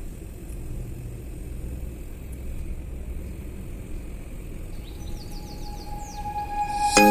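Low, steady rumble of a moving vehicle, with a short run of high chirps about five seconds in. Music with chiming notes starts just at the end.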